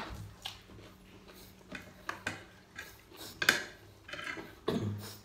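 Eating by hand: fried chicken being pulled apart over a plate, with scattered small clicks and taps against the dishes, the loudest about three and a half seconds in.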